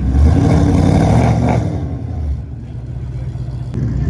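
A car engine running loud, with a deep steady drone, then easing off about two seconds in; a short click near the end.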